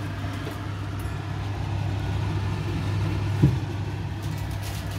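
Steady low electric hum with a faint fan-like hiss from a kitchen appliance fan, with one short low knock about three and a half seconds in.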